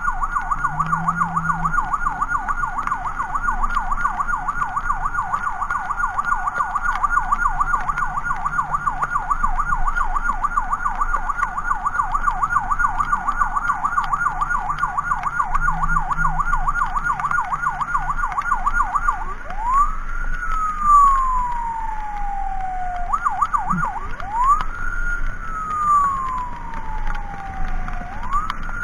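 An ambulance's electronic siren sounds a rapid yelp. About two-thirds of the way through it switches to a slow wail: a quick rise, then a long falling sweep, heard three times, with a short burst of yelp in between.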